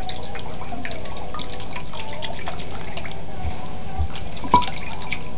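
Albino ferret splashing in a bowl of water: a run of small, quick splashes and drips, with one sharper click about four and a half seconds in.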